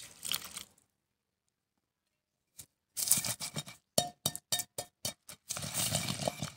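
A thin stream of water trickling onto melon seeds in a terracotta mortar, cut off under a second in. About three seconds in, a wooden pestle starts pounding the wet seeds in the clay mortar: rapid knocks, about three a second, each with a short ringing note from the bowl.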